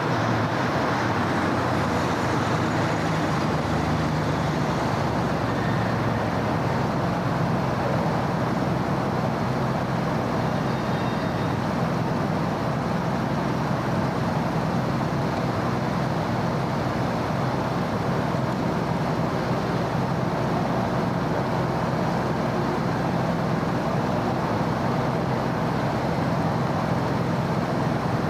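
Steady city road traffic: a continuous wash of car and heavier vehicle engines and tyre noise, with no single vehicle standing out.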